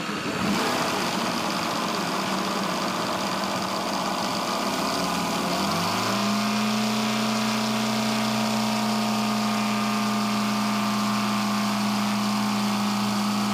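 O.S. FR7-420 seven-cylinder four-stroke radial model aircraft engine running just after starting: uneven for the first few seconds, then settling into a steady idle about six seconds in.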